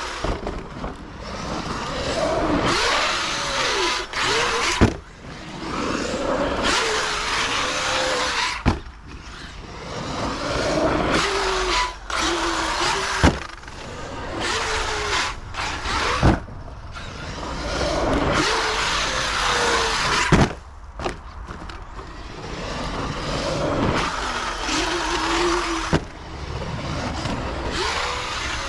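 Arrma Kraton 8S EXB electric RC truck driven hard on a dirt track. Its brushless motor whines up and down with the throttle over tyre noise, with several sharp thuds from hard landings.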